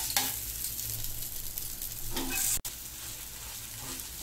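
Adai batter sizzling in oil on a cast-iron dosa tawa, while a steel spatula scrapes under it and flips it over.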